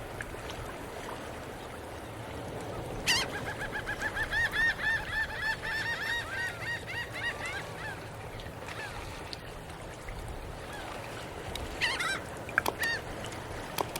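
Geese honking: a quick run of repeated calls for about four seconds, then a few more calls near the end, over a steady low background rumble.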